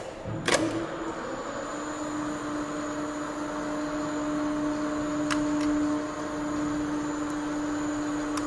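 Two sharp clicks of contactors pulling in inside an elevator controller, then the elevator's hoist motor and drive run with a steady hum holding one pitch as the car travels.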